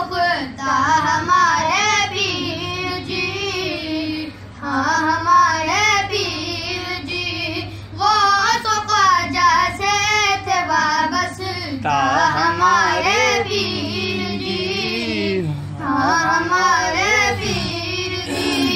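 Voice singing an Urdu manqabat, a devotional praise poem, in long ornamented phrases of about four seconds each with brief breaths between them, over a steady low hum.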